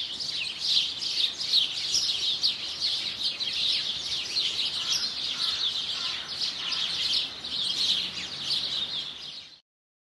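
Small songbirds chirping and twittering together in a dense chorus of quick, high chirps, which cuts off suddenly near the end.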